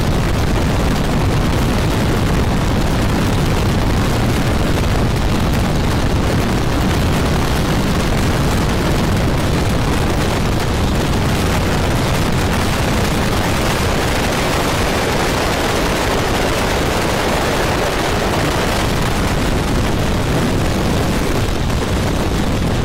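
Open-cockpit biplane in flight: a loud, steady rush of slipstream wind buffeting the microphone, mixed with the engine's running noise.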